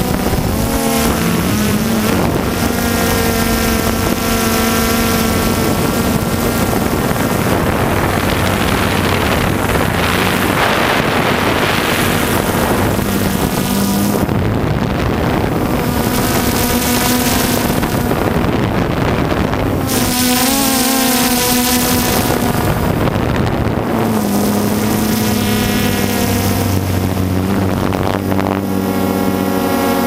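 DJI Phantom 2 quadcopter's motors and propellers buzzing steadily in flight, their pitch shifting now and then as it manoeuvres, with wind noise on the microphone.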